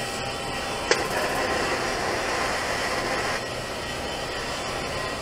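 Steady hiss and hum while a steel pipe joint is TIG-welded by hand, with one sharp click about a second in. A faint high steady tone in the noise drops out a little after three seconds.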